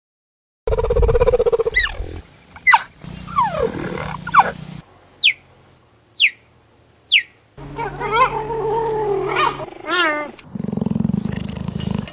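Cheetahs calling: three sharp, high chirps sliding steeply down in pitch, about a second apart, with lower wavering calls before and after them.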